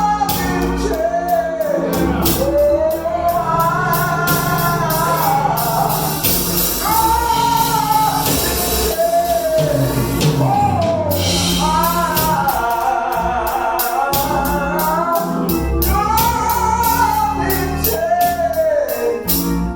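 Gospel song: a singer over instrumental accompaniment with a steady percussion beat.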